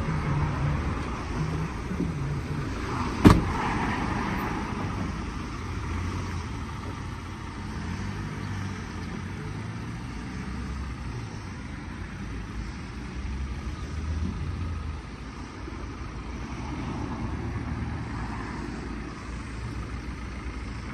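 Ford Transit's 2.0 TDCi EcoBlue four-cylinder diesel running at a steady idle, a low rumble heard from outside the van. A single sharp bang about three seconds in is the cab door shutting.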